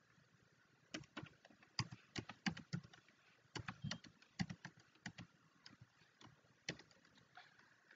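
Faint keystrokes on a computer keyboard, tapped in short irregular runs starting about a second in.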